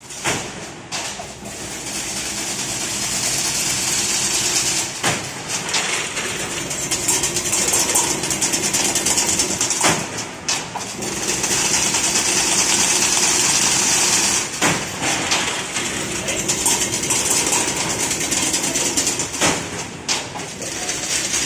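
Servo-driven chain link fence weaving machine running, spinning 4 mm galvanized wire into 50 mm diamond mesh: a steady mechanical clatter and hiss, briefly broken about every five seconds.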